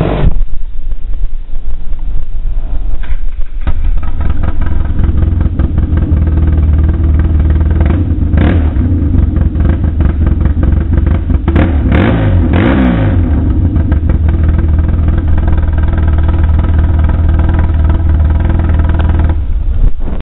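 Polaris Sportsman 800 ATV's twin-cylinder engine running loud and deep through straight pipes with no muffler, blipped up in a few short revs around the middle.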